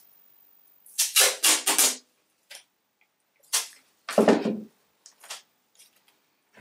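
Wide painter's tape being pulled off the roll in quick strips: four pulls in a row about a second in, then more pulls and a tear around four seconds in.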